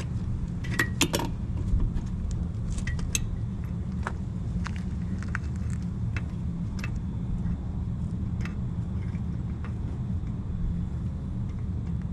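Metal clinks and taps of lug nuts being handled and started onto the studs of a semi-truck wheel. There is a cluster of clinks in the first three seconds, then sparser ones, over a steady low rumble.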